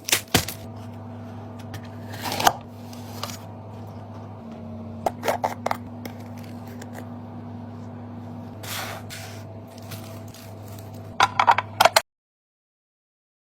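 Kitchen restocking handling sounds: containers and packages set down, clicking and scraping, in scattered bursts with a quick cluster near the end, over a steady low hum. The sound cuts off abruptly about twelve seconds in.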